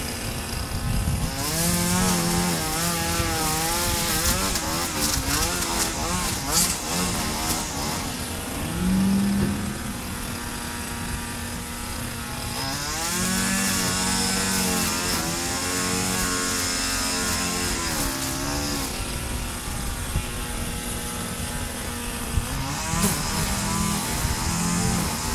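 Gas string trimmer (weed whacker) running, its engine pitch rising and falling again and again as the throttle is worked, with stretches of louder high hiss.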